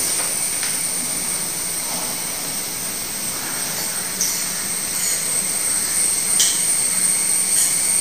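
Steady background hiss with a faint high whine, and a few faint clicks and rustles of a paper chart being handled and clipped onto a whiteboard.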